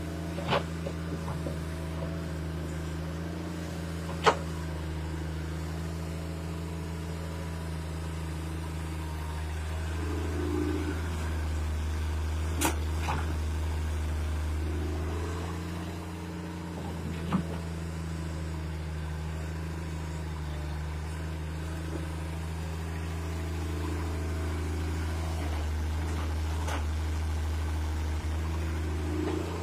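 Sumitomo hydraulic excavator's diesel engine running steadily as the machine digs, its hum rising a little under load now and then. A few sharp metal knocks break through, the loudest about four seconds in.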